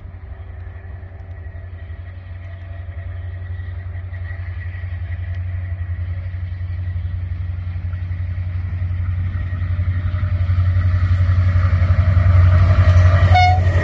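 Diesel locomotive approaching with a passenger train: a low engine rumble that grows steadily louder as it comes closer.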